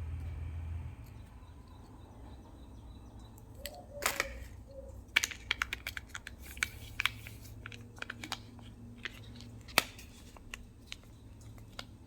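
Plastic toy and candy packaging being handled and opened: a run of sharp, irregular clicks and crinkles. A low hum stops about a second in.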